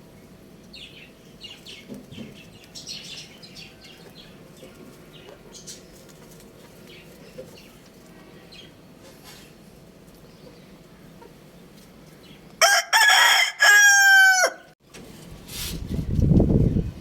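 A rooster crows once, loud and about two seconds long, the end of the crow falling in pitch. Shortly after, near the end, comes a loud low rumbling noise.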